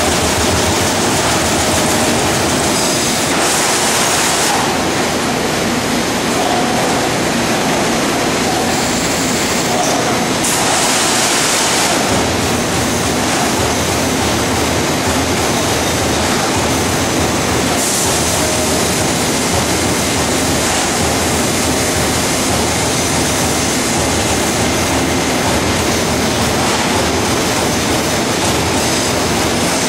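A 27.5-ton Trumpf TC500R CNC turret punch press punching sheet metal, its strokes running together into a loud, continuous mechanical clatter. Brief bursts of hiss come a few times.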